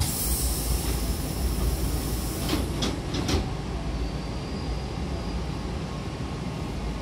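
A Hankyu train's double sliding doors closing: a hiss as they start to move, then a few knocks close together as the door leaves shut, over a steady low rumble.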